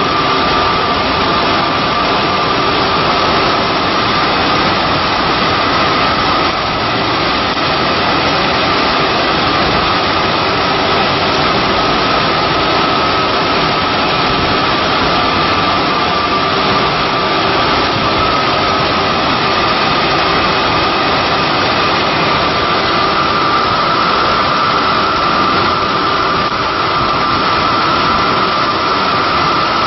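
Cincinnati Milacron Model AM 5-axis CNC router profiler running: a loud, steady machine noise with a high whine that drifts slightly in pitch.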